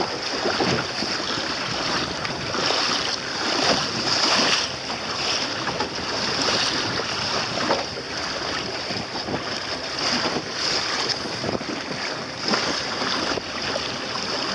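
Water rushing and splashing along the hull of a small sailboat under way, with wind buffeting the microphone; the rush swells and eases every second or so.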